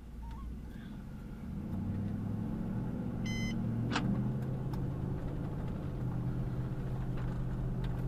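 Car engine and road noise heard from inside the cabin while driving, getting louder about two seconds in as the car picks up speed, then running steadily. A short high electronic beep sounds a little after three seconds, followed by a sharp click.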